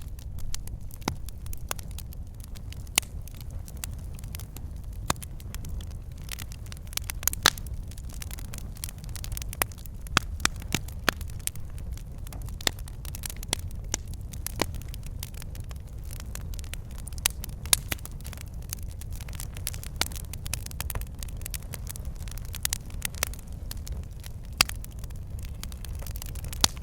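Wood fire burning in a fireplace: logs crackling and popping in irregular sharp snaps over a steady low rumble of flame.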